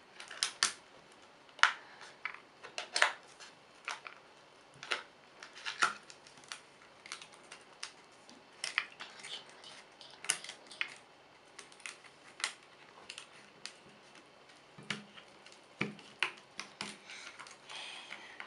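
Scissors snipping repeatedly, cutting the thin plastic bottle mould away from set gelatin: a string of sharp, irregular clicks, about one or two a second.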